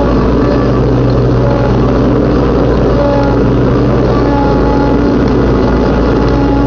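Riding lawnmower engine running steadily while mowing grass.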